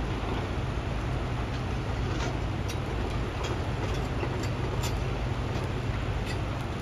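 Heavy construction machinery running with a steady low rumble, with a few faint sharp clicks scattered through.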